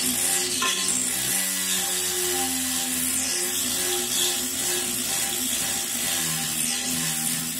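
Handheld rotary tool with a diamond bit grinding the ceramic wall of a toilet cistern, a steady hiss, widening the fill-valve hole from 3/8 to 1/2 inch. Background music plays over it.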